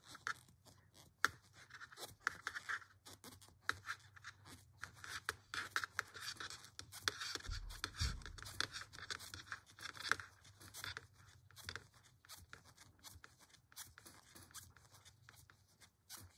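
5.5 mm metal crochet hook and yarn being worked while chaining stitches: a dense, irregular run of small scratches and clicks as the hook pulls yarn through each loop. A dull bump sounds about eight seconds in.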